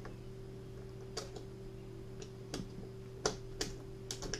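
Cartridges being pressed one-handed into a Walther PPK magazine: a handful of sharp, irregular metallic clicks, the loudest about three seconds in, over a faint steady hum.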